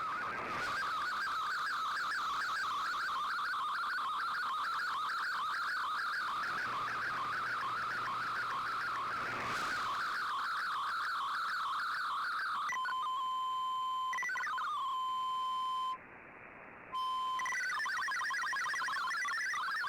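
Digital-mode data signal from a shortwave broadcast, received on a communications receiver: a warbling, fast-changing cluster of tones over a hiss. About two-thirds of the way in it changes to a steady tone with a downward glide, cuts out for about a second, then resumes as a different busy stream of tones.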